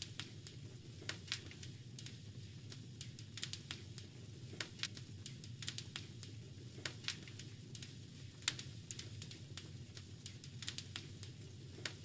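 Fireplace fire crackling: irregular sharp pops and snaps, several a second at times, over a steady low rumble of burning.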